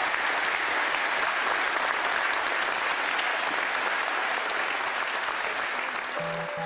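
A large crowd applauding, a dense, steady clatter of clapping. Music with a pulsing beat begins just before the end.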